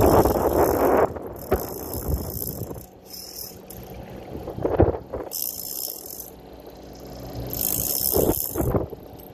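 Big-game trolling reel's ratchet clicking in five separate bursts, each lasting about half a second to a second and a half, while a hooked shark bends the rod. Wind and water noise runs underneath.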